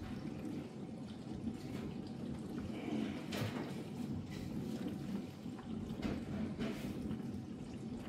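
Ariston dishwasher running its test programme: water splashing and spraying inside the tub over a steady low hum, with a few louder gushes along the way.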